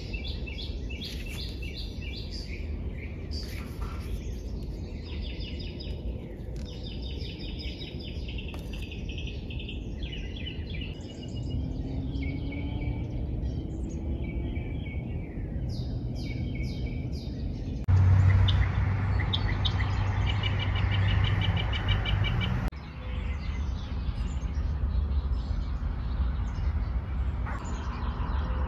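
Several wild birds singing and calling, with chirps and rapid trills, over a steady low rumble. From about 18 to 23 seconds a louder low hum joins in, then stops suddenly.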